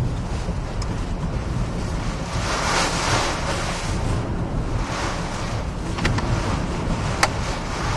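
Hurricane Katrina's wind and driving rain battering a car, heard from inside with heavy wind rumble on the microphone. The gusts swell about three seconds in and again about five seconds in, and two sharp ticks come near the end.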